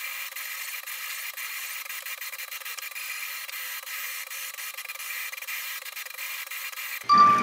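Anycubic Kossel delta 3D printer printing: its stepper motors whir with a few held tones and many small ticks, sounding thin and tinny with no low end. Near the end the sound jumps abruptly louder, with a brief high beep.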